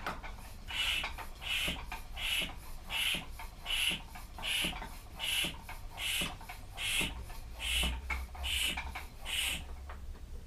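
Bicycle tyre pump worked in steady strokes, a squeaky hiss on each stroke, about twelve strokes at a little over one per second, inflating the Dutch bike's repaired rear tyre.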